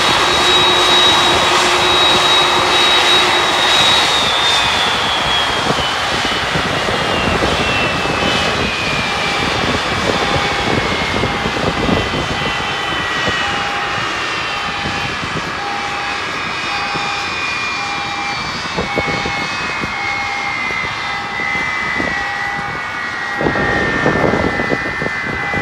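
Jet airliner engine winding down after shutdown: a high whine that holds steady, then slowly falls in pitch over many seconds, over a steady roar. From about eight seconds in, a short beep repeats at an even pace of a little under one a second.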